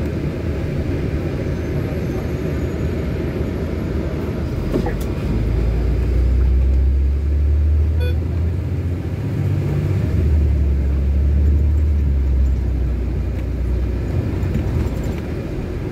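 Inside a moving city bus: steady engine and road rumble, with a deeper engine drone that swells about five seconds in and eases off a few seconds before the end.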